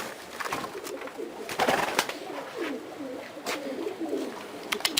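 Domestic pigeons cooing over and over, low wavering calls, with a few sharp clicks in between.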